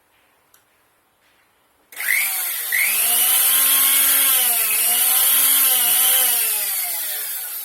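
Electric blender motor switched on about two seconds in, running at high speed with a whining hum that wavers slightly in pitch, then switched off and winding down near the end.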